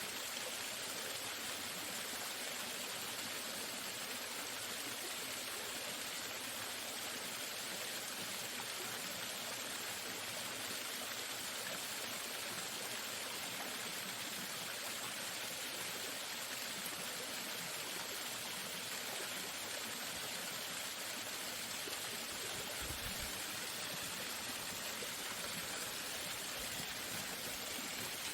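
Waterfall: a steady rush of falling water, unbroken and even, with a brief low thump about three-quarters of the way through.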